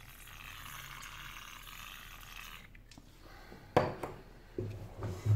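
Aerosol spray can hissing steadily for nearly three seconds, then stopping. A few sharp knocks follow, the loudest about a second later and another near the end.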